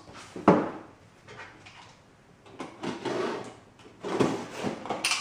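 Cardboard shipping box being handled and opened on a workbench. A sharp knock comes about half a second in, followed by scraping and rustling of cardboard and packing tape.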